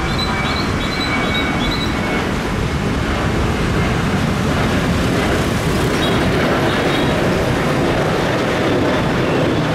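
Boeing 737-800's twin CFM56-7B jet engines at takeoff power as the airliner climbs out, a loud steady jet noise, mixed with road traffic noise.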